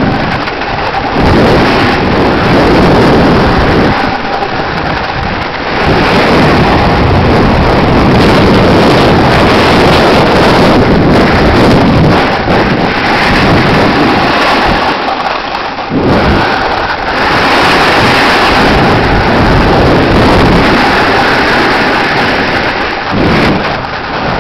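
Wind buffeting the camera microphone during a fast snowboard descent, a loud, uneven rumble with the rush of snow under the board.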